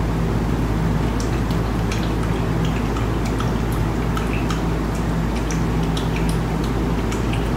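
Steady low room hum, with faint, irregular light ticks from a paintbrush dabbing acrylic paint onto a canvas.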